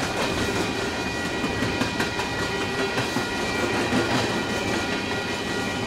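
Freight train cars rolling past at speed, a steady dense rumble and clatter with a few high steady tones running through it.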